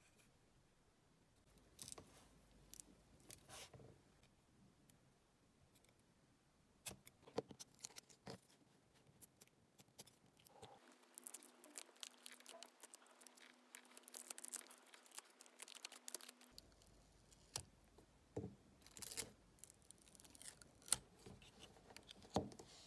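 Faint handling noises of small electronic parts: scattered light clicks, taps and rustles as fingers work an iPod mini circuit board and its Seagate Microdrive. There is a denser stretch of rustling in the middle and a sharper click near the end.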